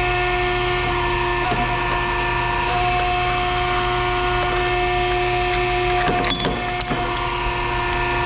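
Machinery running with a steady whine and hum, holding several fixed pitches. A few sharp clanks come about six to seven seconds in.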